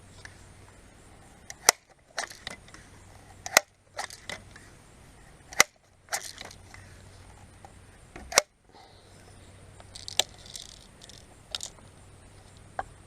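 Crosman pump-action BB gun being pumped by hand: a sharp clack about every two seconds, with smaller clicks in between.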